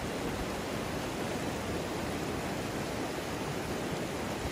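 Fast-flowing mountain stream rushing steadily, an even, unbroken wash of water noise.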